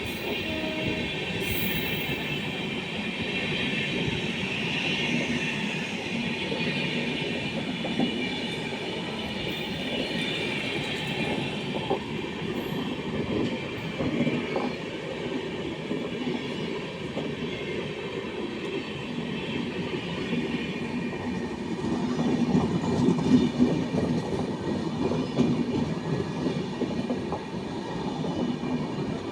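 Indian Railways express train running on the track: steady wheel and rail noise with clickety-clack, a thin high wheel squeal through the first half, and the noise grows louder a little over three-quarters of the way in.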